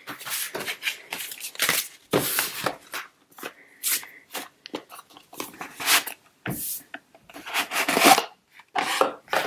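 Stiff cardboard gift boxes and envelopes being handled, shuffled and slid against each other, and a drawer-style box pulled open: irregular rustles, scrapes and light knocks.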